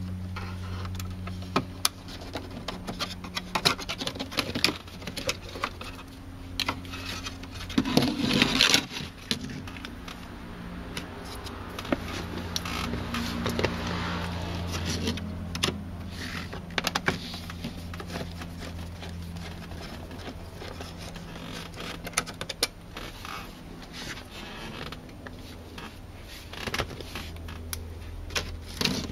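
Plastic dashboard trim and vent parts of a 1995 Mercedes-Benz C280 (W202) being pried and handled with a small screwdriver: scattered clicks, scrapes and rattles, the loudest a scraping rattle about eight seconds in. A steady low hum runs underneath.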